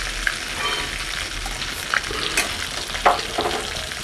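Egg-coated, crumbed lote (Bombay duck) fish chops sizzling steadily in hot vegetable oil, with a few sharp clinks of a metal utensil in the pan about two and three seconds in as the fried chops are lifted out.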